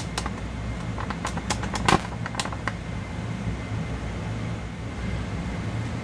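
Steady low hum of a running fan, with a few light clicks and taps in the first three seconds, the loudest about two seconds in.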